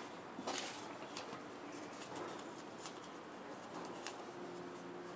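Strips of notebook paper being folded over each other by hand: faint rustling and crinkling with small scattered clicks.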